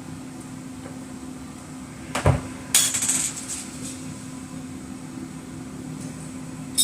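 A knock about two seconds in, then a short fizzing hiss from Red Stripe beer, over a steady low hum; a click near the end.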